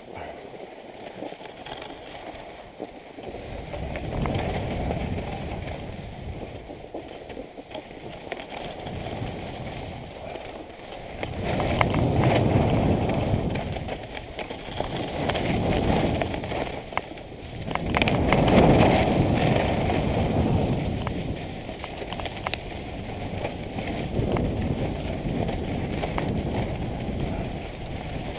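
Skis sliding and scraping over groomed snow, the hiss swelling and fading with each turn, loudest in two swells around the middle, with wind noise on the microphone.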